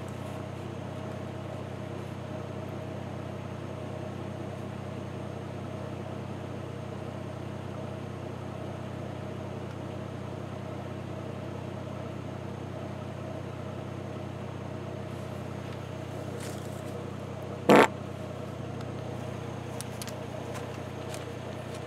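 Steady low hum of an idling engine, with one short, loud blip about eighteen seconds in.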